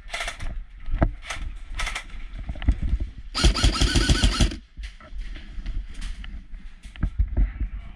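Boots knocking on the wooden planks of a trench walkway with gear clattering, and about three and a half seconds in a rapid burst of roughly one second from an airsoft rifle.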